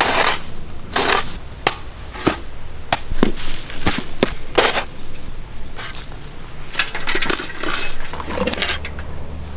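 Clay and red soil being dug and shifted with a hand tool for building a mud stove: a string of irregular, sudden scraping and crunching strokes.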